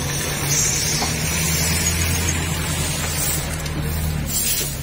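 Stick brooms scratching and sweeping across wet pavement, over the steady low hum of an idling engine.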